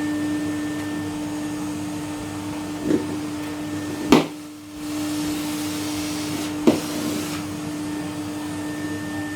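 Casdon toy Henry vacuum cleaner's small motor running with a steady hum. A few knocks come as it bumps about. After the loudest knock, about four seconds in, the hum drops out for a moment, then picks up again.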